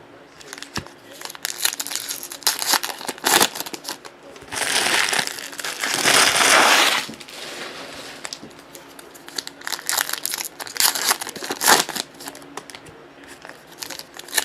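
Plastic trading-card pack wrappers crinkling and rustling in the hands as packs of 2018 Panini Prizm World Cup cards are opened, a string of short crackles with a longer run of continuous crinkling about halfway through.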